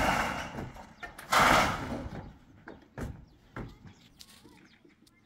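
Corrugated metal roofing sheet being handled and laid in place, with a loud rattling rush as the sheet flexes and slides at the start and again, loudest, about a second and a half in, then a few sharp knocks of metal.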